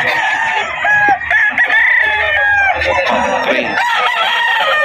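Several gamecocks crowing, their calls overlapping one after another with no pause.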